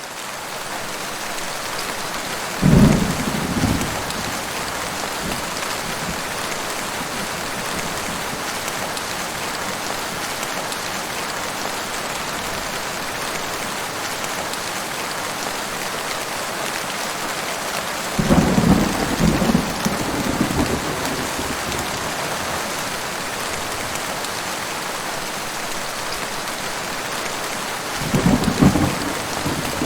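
Steady heavy rain, fading in at the start, with three rolls of thunder: a short one about three seconds in, a longer rumble of a few seconds about two-thirds through, and another near the end.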